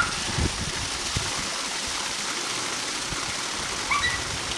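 Steady rush and splash of water pouring from a backyard pool's water feature, with a couple of short low thumps about half a second and a second in.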